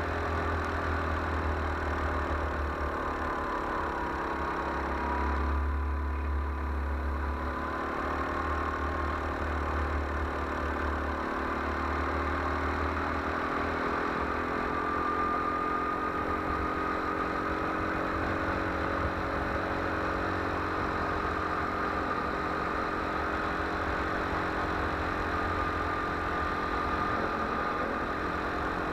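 Go-kart engine running steadily as the kart laps the track, heard from the kart itself. Its pitch sags slightly about five seconds in and then climbs slowly again, over a low rumble.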